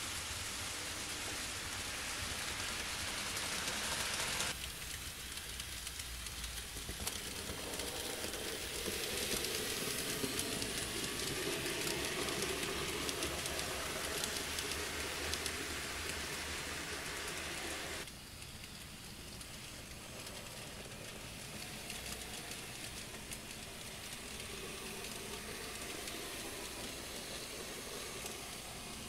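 Model trains running on the layout's track: a steady hissing rattle of small metal wheels on rail with a motor whirr underneath. The sound changes abruptly about four seconds in and again near eighteen seconds, and is loudest between them.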